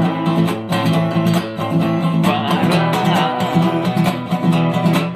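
Guitar strummed in a steady rhythm, with one short sung word ("Pora") about three seconds in.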